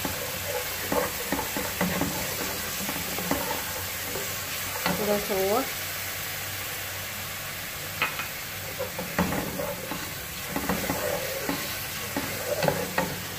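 Garlic-ginger paste and dry spice powders sizzling in hot oil in a non-stick pot while a plastic spoon stirs and scrapes them, with a few taps of the spoon against the pan. The masala is being fried with a splash of water so the spices don't burn.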